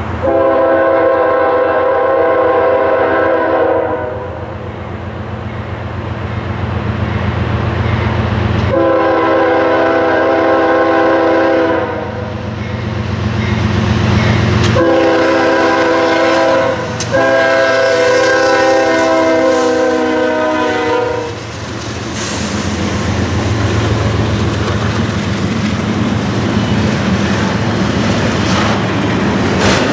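CSX diesel freight locomotives sounding a multi-note air horn in the grade-crossing pattern, long, long, short, long, over the steady drone of their engines. After the last blast the double-stack intermodal well cars roll past with a steady rumble and clickety-clack of wheels on rail joints.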